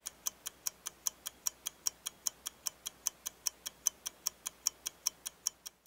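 Rapid, even ticking sound effect, about five sharp ticks a second.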